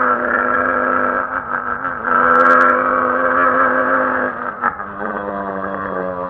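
A man's voice mimicking a Yamaha RX100 two-stroke motorcycle engine: a steady buzzing engine note that swells about two seconds in, then drops lower in pitch near the end.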